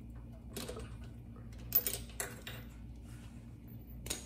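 Spark plug being loosened and unscrewed from a Briggs and Stratton small engine with a spark plug socket and wrench: a few short metal clinks and scrapes, the loudest a little under two seconds in.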